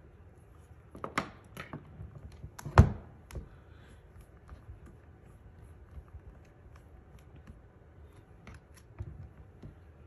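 Light taps and clicks of hand-stamping on a stamping platform. One sharp clack about three seconds in as the hinged clear plate carrying the rubber stamp is closed onto the card.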